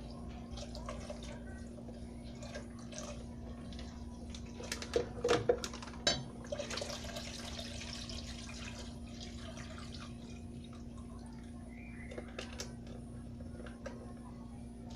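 Liquid sounds from a cooking pot as milk is poured into rice and stirred, with a few louder knocks of a spoon against the pot about five to six seconds in, over a steady low hum.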